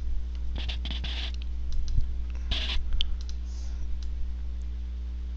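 A few sharp computer mouse clicks and two brief scratchy rustles, over a steady low electrical hum.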